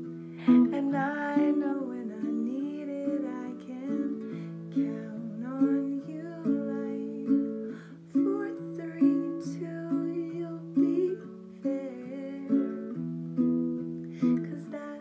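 Baritone ukulele strummed in steady chords, with a woman's voice singing the melody over it.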